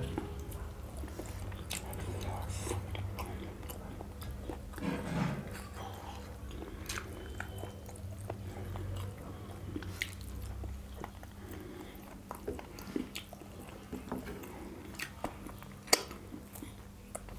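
Close-up chewing and biting of chicken leg curry with rice, with scattered small wet clicks from mouths and hands. A single sharper click near the end is the loudest sound.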